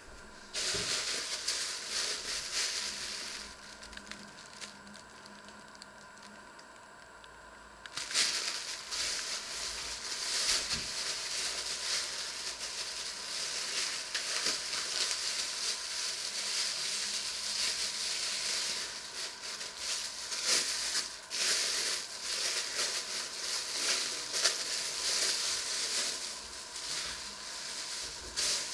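Thin plastic bag crinkling and rustling as hands handle and open it, in a short bout, a few seconds quieter, then almost continuous crackly rustling.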